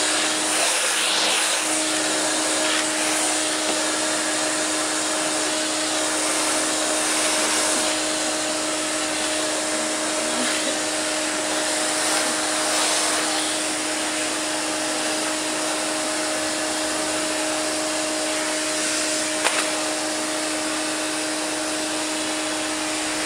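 Vacuum cleaner running steadily, a constant motor tone over the hiss of suction. The tone drops out briefly about a second in, and there is a single sharp knock near the end.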